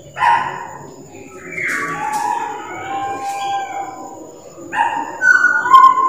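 Pied butcherbird singing: clear, flute-like whistled notes in short phrases, some gliding down in pitch, the last one held.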